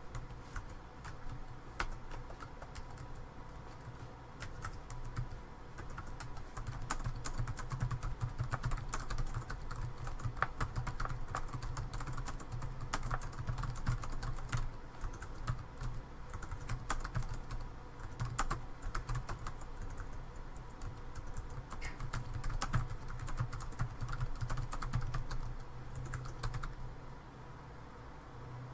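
Computer keyboard being typed on, a dense run of irregular key clicks that stops shortly before the end, over a low steady hum.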